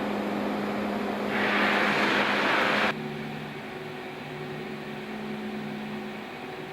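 Steady hum of industrial plant machinery with two steady tones, and a loud hiss that rises in about a second in. Just under three seconds in the sound changes abruptly to a quieter hum with a low tone that pulses on and off.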